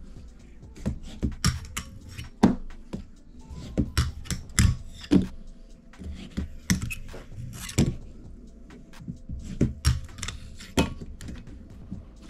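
A 34 mm Kickflick wooden fingerboard deck being used for tricks: an irregular series of sharp clacks and taps as the tail is popped and the board lands.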